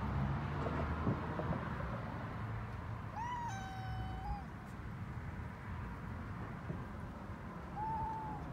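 A kitten meows twice: a long call about three seconds in that dips a little in pitch and then holds level, and a short one near the end.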